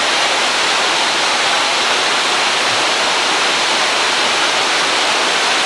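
Steady rush of water from a resort pool's artificial waterfall pouring into the pool.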